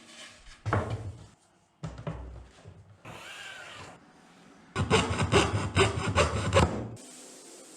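Homemade mini table saw, its blade driven by a 775 DC motor, cutting wood in several short separate bursts. The longest and loudest cut comes about five to seven seconds in.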